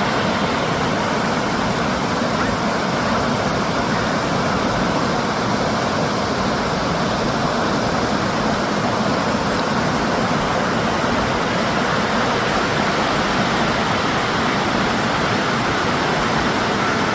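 Fast-flowing river water rushing over rapids, a steady, unbroken noise.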